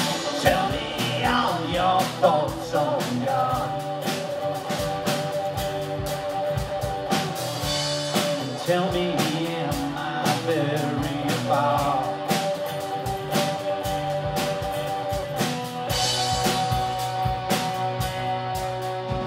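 Live rock band playing a song: a drum kit keeps a steady beat under strummed acoustic guitar and electric guitar.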